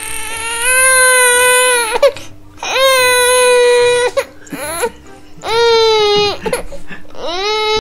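Six-month-old baby crying in long, steady wails: three held cries with short breaks between, and a fourth starting near the end.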